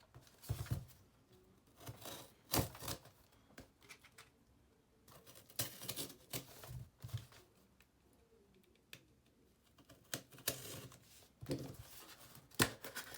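Tearing and crinkling of a small sealed PSA cardboard box and its packing being opened by hand, in scattered bursts with short pauses.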